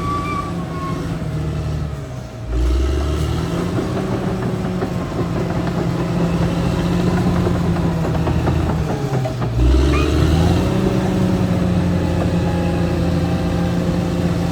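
Caterpillar D6R XL bulldozer's diesel engine running while working. Its note drops twice, about two seconds in and again near ten seconds, each time ending in a low thump before the engine pulls back up to speed.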